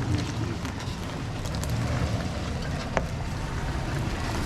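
Toyota Tundra pickup's engine running steadily in four-wheel drive, a low even rumble with a few light knocks.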